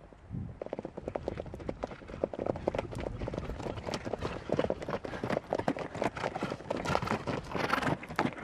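Hoofbeats of several ridden rahvan horses going fast on a dusty dirt track, a dense, uneven patter of hoof strikes. It grows louder as the group comes up and passes close by, and is loudest near the end.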